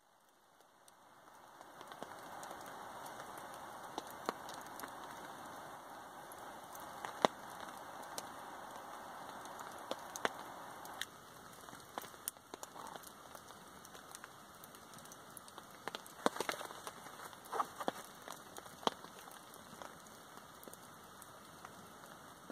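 Windproof jet (storm-gas) lighter hissing steadily as its flame is held to wood feather sticks, cutting off about eleven seconds in. Scattered sharp clicks and light crackling follow as the damp shavings smoke.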